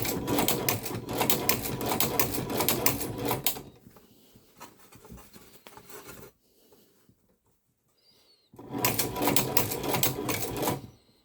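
Chinese shoe patcher sewing machine stitching in two short runs, a rapid even clatter of needle strokes, with a pause between: a few forward stitches and then a back stitch to lock the seam.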